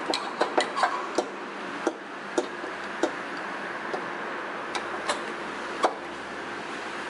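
Irregular sharp clicks and taps, about a dozen, crowded in the first second and then spaced out, from hands and a tool working the new A/C suction hose fitting into place in the engine bay. A steady background hiss runs underneath.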